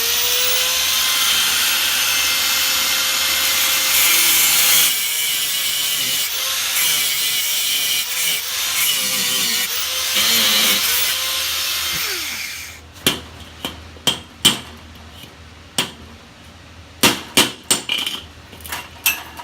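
Angle grinder with a cut-off wheel running at full speed and cutting through a seized nut, a steady whine over a loud grinding hiss. About 12 seconds in it winds down with a falling whine, then come a string of sharp taps as the cut piece is knocked loose.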